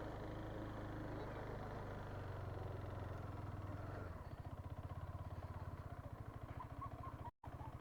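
Motorcycle engine running at low speed, settling about halfway through into an even, fast idle pulse; the sound drops out for a moment near the end.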